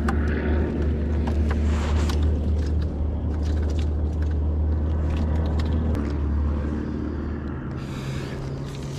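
An engine running steadily with a low drone, its pitch shifting between about six and seven seconds in, with scattered sharp clicks and knocks from handling the fishing rod on the rocks.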